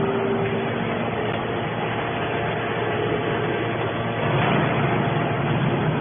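Machinery running steadily, a continuous mechanical noise.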